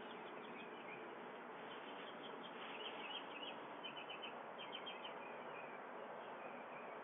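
Faint outdoor ambience through a doorbell camera's microphone: a steady hiss, with runs of quick high bird chirps from about two to five seconds in.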